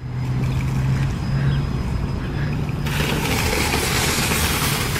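Parking-lot traffic: a car's engine running as it drives across the lot, a steady low hum, joined about three seconds in by a broad rushing noise.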